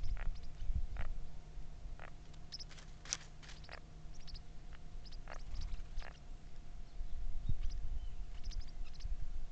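Birds giving short, scattered chirps, a dozen or more, over a constant low rumble and a faint steady hum.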